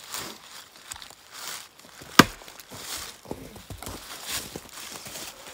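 Footsteps and rustling on frozen leaves and snow, with one sharp knock about two seconds in.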